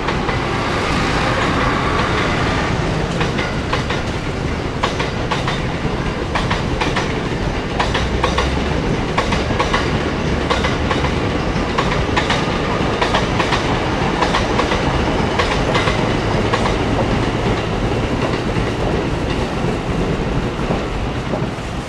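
A train running past, a steady rumble with a long run of wheel clicks over the rail joints.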